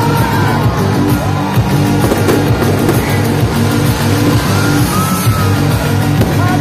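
Loud live band music through a concert sound system, with a heavy repeating bass line and a melody that glides up and down.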